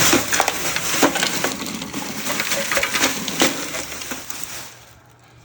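Crushed ice pieces being put into a kitchen sink's garbage disposal drain: a dense run of irregular crunches and clicks of ice against the sink, dying away about four and a half seconds in.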